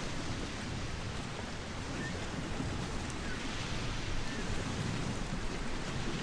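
Seaside wind and surf: small waves washing on the shore with wind gusting on the microphone, a steady hiss with an uneven low rumble.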